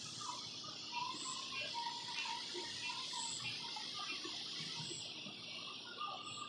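Nighttime summer chorus of insects: a steady high-pitched buzzing, with a short chirp repeating about once a second and lower pulsing calls underneath.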